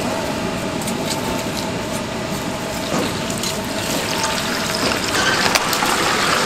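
Battered whole chicken deep-frying in a cast-iron cauldron of hot oil: a steady sizzling hiss that grows louder about four to five seconds in, as the chicken is pushed under and the oil bubbles hard.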